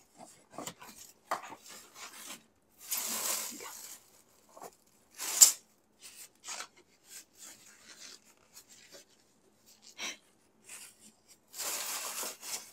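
Paper takeout bag rustling and crinkling as a hand rummages inside it, with scrapes and light knocks of cardboard food boxes. One sharp knock about five and a half seconds in is the loudest sound, and there are longer stretches of rustling around three seconds in and near the end.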